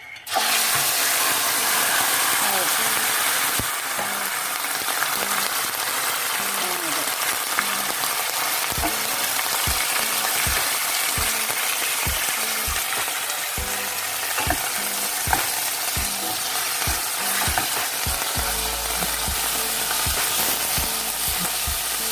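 Chicken and pork pieces, seasoned with a little soy sauce, going into hot oil and sizzling: a dense frying hiss that starts suddenly a moment in, is loudest for the first few seconds, then carries on steadily with scattered knocks.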